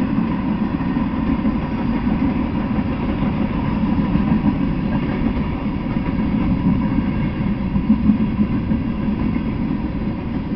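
Freight train passing at speed: the steel wheels of boxcars, covered hoppers and tank cars rolling over the rails in a steady rumble.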